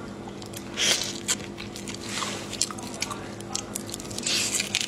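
Wet biting and chewing on a whole sauce-marinated raw shrimp, in a few squishy bursts with small clicks.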